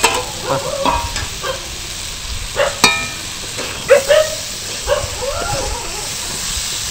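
A spatula stirring and scraping a ridge gourd and potato curry as it fries in a sizzling pan, with repeated knocks against the pan and one sharp ringing clank about three seconds in.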